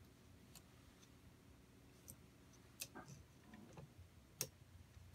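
A few faint, sharp clicks of small metal engine parts being handled and fitted by hand, the loudest just before three seconds and again past four seconds, over a low steady hum.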